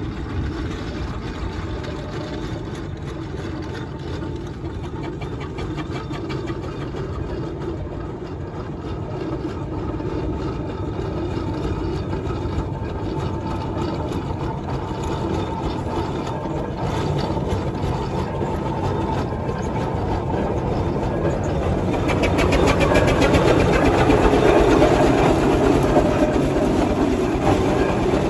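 Steam engine working hard, its exhaust beating in a rapid, steady rhythm, growing louder about twenty-two seconds in.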